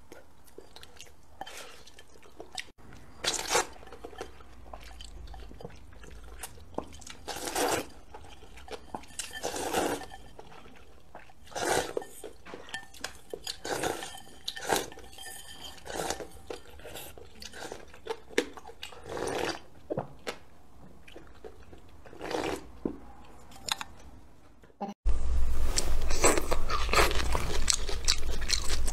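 Close-miked eating: separate slurps, bites and chewing of spicy soup noodles and pork come every second or two. Near the end the sound switches suddenly to louder, dense crunching and chewing of crisp greens.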